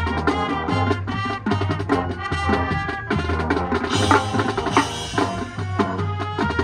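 High school marching band playing: brass and winds over a drumline's snare and bass drums, swelling louder and brighter about four seconds in.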